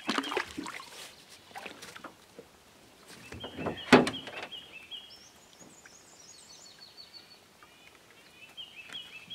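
A bird singing short phrases of quick repeated notes a few times, with a higher trill in the middle. Knocks and clatter, with one loud thump about four seconds in.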